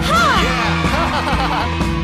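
Upbeat background music, with a quick run of up-and-down pitch glides, like cartoon sound effects, over it in the first second and a half.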